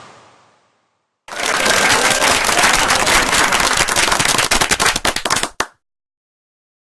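Applause: a group of people clapping hard, starting about a second in and cutting off abruptly about four seconds later. At the very start, the tail of a bowling strike's pin crash dies away.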